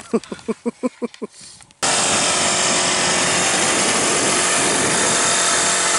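A short laugh, then about two seconds in a battery-powered electric air pump switches on abruptly and runs with a steady, loud rushing hum, inflating a PVC inflatable boat through its hose.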